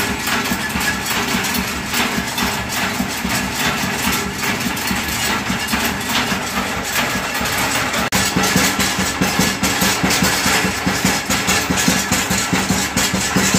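Masala pounding mill (kandap) running, its machine-driven pestles pounding dried red chilli and spices into chutney powder: a loud, steady mechanical clatter of rapid knocks. It gets louder about eight seconds in.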